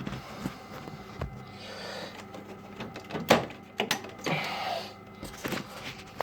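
Clicks, knocks and short scrapes of a part being worked loose inside an opened Worcester combi boiler, over a faint steady hum from the boiler's motor, which is stuck running continuously.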